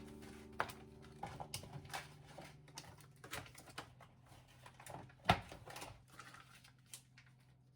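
Scattered light clicks and knocks, with one louder knock about five seconds in, as guitar music fades out at the start.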